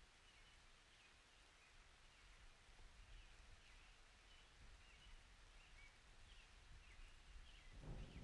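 Near silence: faint room tone with faint, short high chirps like distant birds. Just before the end, a louder rustle starts.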